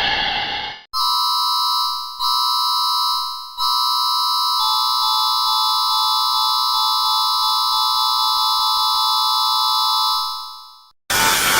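Synthesized emergency-alert alarm tone: a steady electronic chord near 1 kHz sounds three times, the first two briefly and fading, the third held for about seven seconds before fading out. A short harsh noisy sound ends just after the start, and another starts just before the end.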